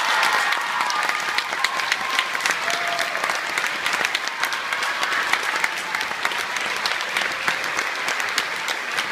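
Theatre audience applauding, a dense, even patter of many hands clapping at a steady level.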